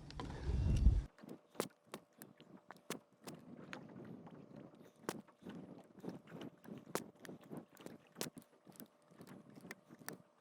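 Fishing line being hand-hauled into a small boat: irregular sharp clicks and knocks with light rustling. A low rumble cuts off about a second in.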